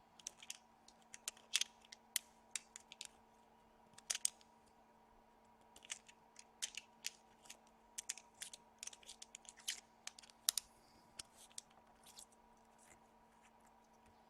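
Irregular light clicks and taps from a wooden squonk box mod being handled, over a faint steady hum.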